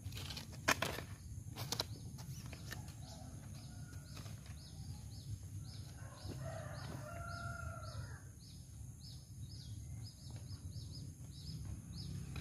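Rural outdoor background with a short, high, falling chirp repeating evenly about twice a second. There are two sharp knocks in the first two seconds and a longer pitched call around the middle, all over a steady low rumble.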